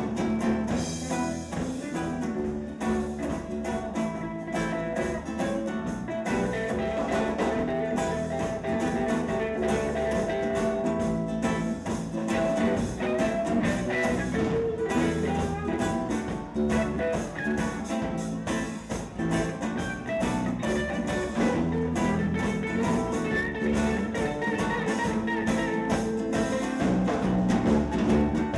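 Live band music: ukulele and other plucked strings over bass and drums, playing a steady reggae-rock groove.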